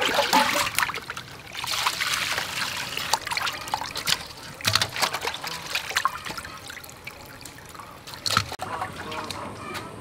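Water splashing and trickling as a parrot fish is rubbed and rinsed by hand in a metal bowl, with water scooped from a glazed jar; irregular sloshes, the loudest right at the start.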